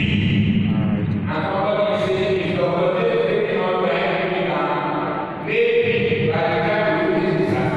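A man's voice chanting through a microphone and PA, in long, held, pitched phrases with short breaks between them.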